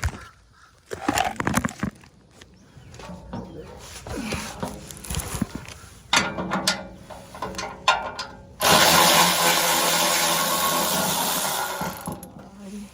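Socket ratchet clicking in short runs with small metal clinks as skid plate bolts are worked loose. After about eight and a half seconds a loud, even rushing noise starts suddenly, lasts about four seconds and fades away.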